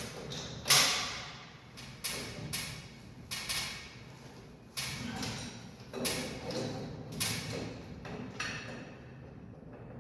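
Irregular knocks and clanks, about a dozen, each with a short ringing tail; the loudest comes about a second in, and they thin out over the last two seconds.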